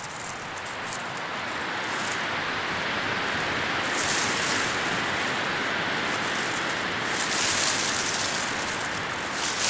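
Leaves rustling as a steady hiss that swells over the first couple of seconds and holds, with brighter surges about four seconds and seven seconds in.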